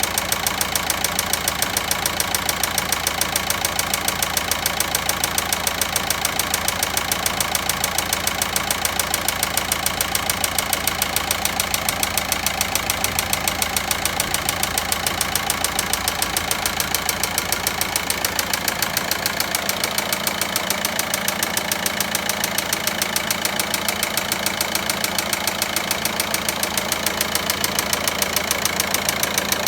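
Volkswagen Passat 1.9 diesel engine idling with a rapid, regular ticking knock: the abnormal engine noise whose source is in question.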